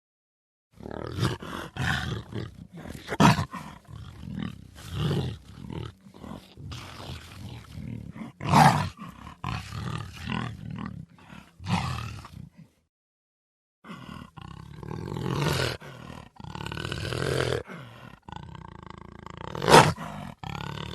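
Big cat roaring in a run of short harsh calls, one after another, then after a brief silence several longer drawn-out calls and one sharp, loud call near the end.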